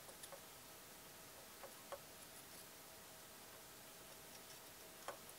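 Near silence, broken by about five faint, sharp clicks of a soldering iron tip and solder touching the pins of a chip on a circuit board, the loudest about five seconds in, over a faint steady hum.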